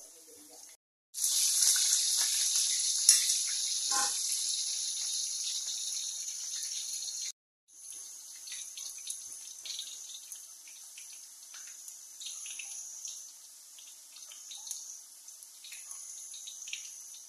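Potato pieces deep-frying in a wok of hot oil: a steady sizzle with fine crackles. It breaks off twice for a moment, and it is louder up to the second break, about halfway through, and softer after it.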